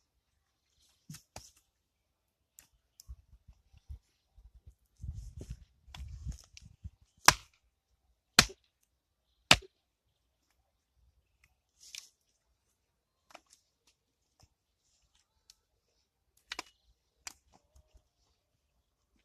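Axe blows on firewood being split: three sharp, loud strikes about a second apart near the middle, with scattered lighter knocks before and after.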